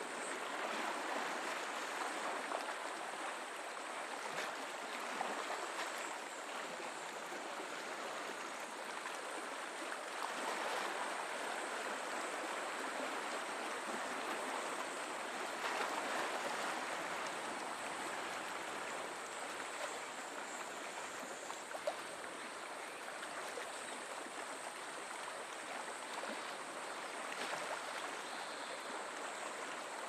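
Small ocean waves lapping and washing on a shoreline: a steady wash of water with gentle swells in level and small splashes now and then.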